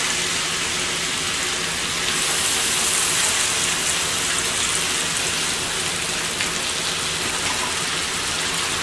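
Shrimp sizzling in hot oil in a pan with onions, garlic and coconut, a steady hiss that grows a little louder about two seconds in, then settles.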